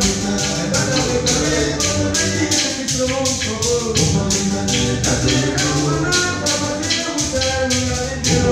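A live vocal group singing through microphones over music, driven by a steady, fast shaker beat.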